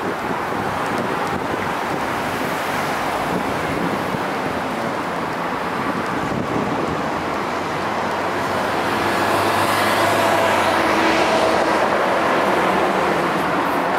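Urban street traffic: a steady wash of passing cars. About two-thirds of the way through, a heavier vehicle with a steady engine hum grows louder as it passes.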